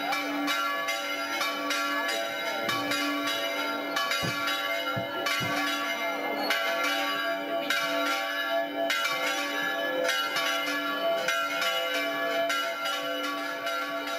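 Church bells pealing, struck over and over at about two strokes a second, each new stroke sounding over the ring of the ones before.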